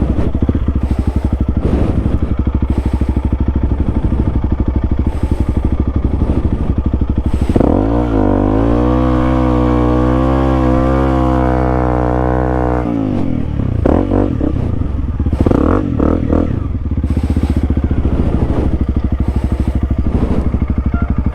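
Honda CRF300L's single-cylinder four-stroke engine running while riding through mud. About eight seconds in it revs up and holds the higher revs for about five seconds, then drops back abruptly. A few brief uneven bursts follow.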